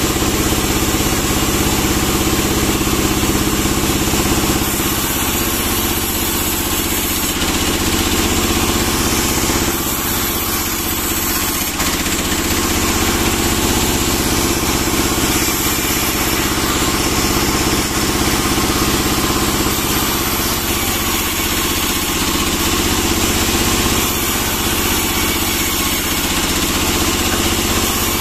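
Band sawmill running steadily, its engine-driven blade sawing a pine log into boards.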